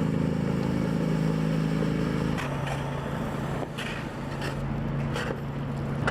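Street traffic: a motor vehicle's engine running steadily. Its hum drops to a lower tone about two and a half seconds in, and a few short hissing or scraping noises follow.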